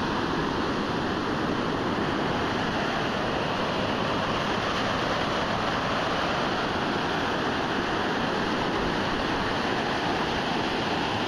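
Ocean surf breaking and washing up a sandy beach: a steady, even rush of white water with no separate crashes standing out.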